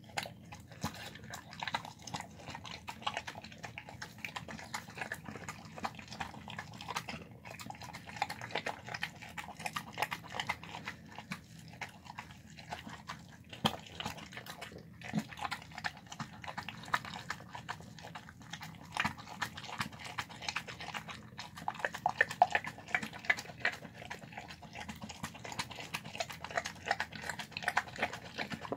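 A dog eating soft chicken and egg rice from a plastic tub: wet chewing and smacking with many quick, irregular clicks, and a few louder ones now and then.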